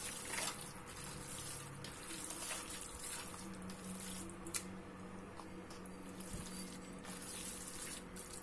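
Hand kneading and squeezing a wet, oily mix of raw minced lamb, onion and tomato in a stainless steel bowl: faint, irregular wet squishing.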